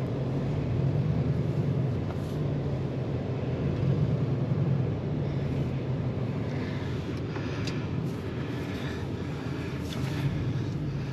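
Four-wheel-drive truck driving, its engine and road noise steady, with a few faint clicks in the second half. The driver takes the clicking for a broken U-joint on the right front drive shaft.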